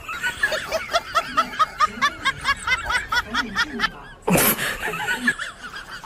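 Rapid, high-pitched snickering laughter in a fast even run, about five short laughs a second. About four seconds in, a loud burst of noise cuts across it.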